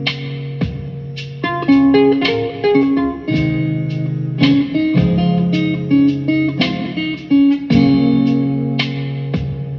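Guitar music: a soulful, peaceful piece of plucked notes and chords over sustained low notes.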